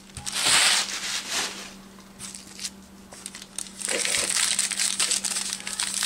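Bubble wrap crinkling as it is pulled off a small package, then rustling and crinkling again in the last two seconds as the package, wrapped in brown paper, is handled.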